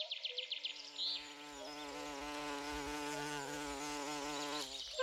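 Bumblebee buzzing, a steady droning hum that swells in about a second in, wavers slightly in pitch and cuts off near the end. A quick high trill sounds in the first second.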